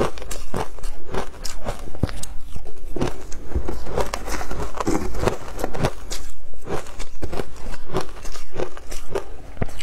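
Matcha-covered ice being chewed, a quick run of sharp crunches and crackles, several a second, throughout.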